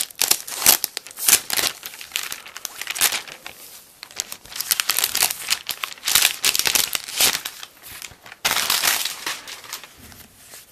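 Clear plastic protective sleeve crinkling as it is handled and pulled off a new laptop. The crinkling comes in three spells with short pauses between them.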